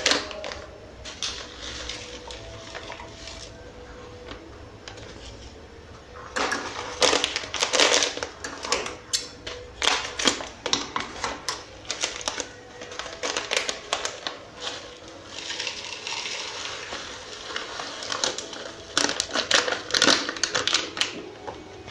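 Clear plastic zip-lock bag crinkling and rustling as it is handled, cut open with scissors and emptied into a plastic jar. The crackling comes in irregular spurts, heaviest a few seconds in and again near the end.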